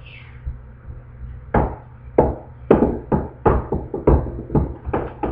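A run of about ten sharp knocks and taps, two or three a second, starting about a second and a half in, from a hardcover picture book being handled close to the microphone.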